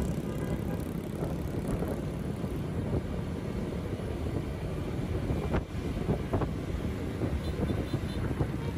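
Steady vehicle and road noise from a ride through town traffic, with wind rumbling on the microphone and a few brief clicks.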